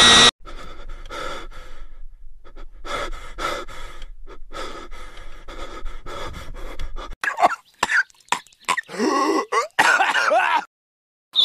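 A voice coughing and panting in a quick run of short breathy bursts, a few each second. About seven seconds in, several louder voiced cries follow, their pitch sliding up and down, then the sound cuts off suddenly.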